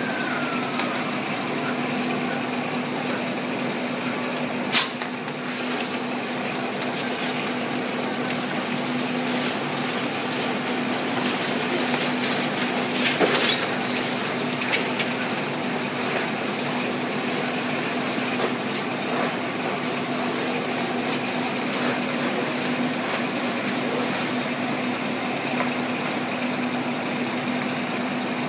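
Fire trucks' engines running steadily at the fire scene, a constant low hum under a wash of noise. A sharp click about five seconds in and a short burst of louder noise around thirteen seconds.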